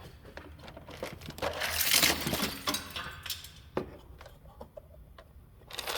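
Rustling and crinkling of parts and wire being handled and rummaged through, loudest about two seconds in, with scattered light clicks and knocks.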